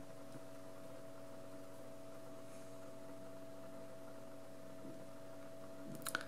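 Quiet room tone with a steady electrical hum and faint hiss, and a couple of soft clicks near the end.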